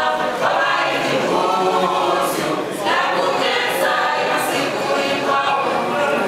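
A mixed choir of women's and men's voices singing in harmony, unaccompanied, in sustained phrases.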